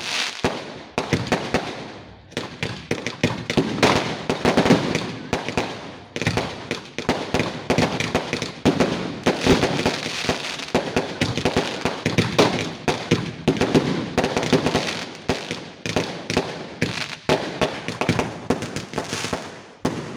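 Fireworks going off in rapid, overlapping crackles and bangs, almost without a break, easing briefly about two and six seconds in.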